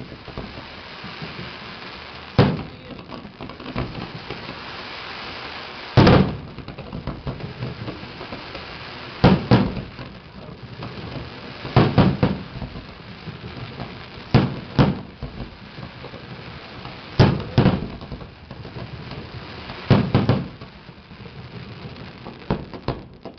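Aerial fireworks display: shells bursting with sharp booms, mostly two in quick succession, repeating every two to three seconds.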